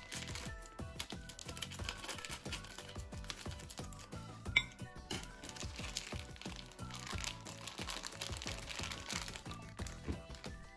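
Background music over the crinkling of a plastic sausage package being squeezed and opened by hand, with one sharp click about halfway through.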